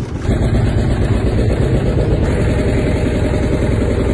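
Boat engine running loud and steady with an even low throb, jumping louder just after the start.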